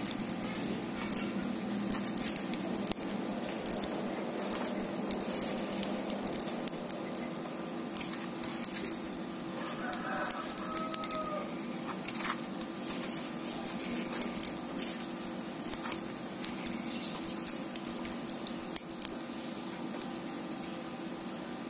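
Light, irregular metallic clicking and ticking of enamelled copper wire being wound by hand onto an electric blower motor's steel stator core, the wire and winding tool tapping on the core as a new coil is laid on, over a steady low hum.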